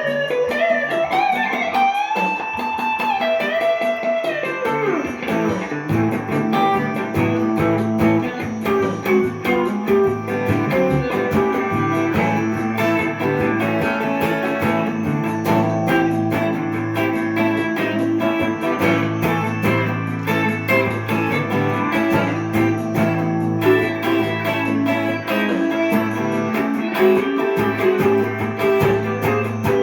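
Gibson ES-339 Custom semi-hollow electric guitar improvising in a jazzy, Indian-flavoured style: sliding, bent notes rising and then falling over the first few seconds, then picked phrases over a steady low drone from about six seconds in.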